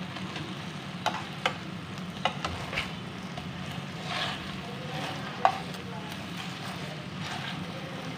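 Chicken breasts sizzling in oil and barbecue sauce in a non-stick frying pan, with metal tongs clicking against the pan as the pieces are turned. A few sharp clicks stand out, the loudest about five and a half seconds in.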